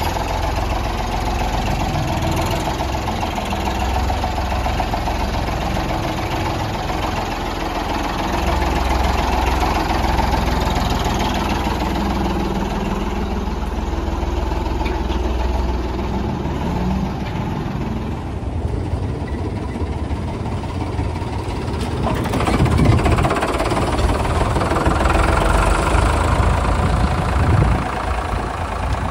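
Ford 3600 tractor's three-cylinder engine running as the tractor drives, steady throughout and somewhat louder in the last several seconds.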